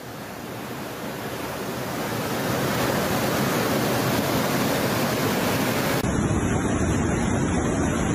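Fast-flowing floodwater rushing down a street, a loud steady rush that swells over the first couple of seconds. About six seconds in it changes to a duller rush with more low rumble as different flood footage begins.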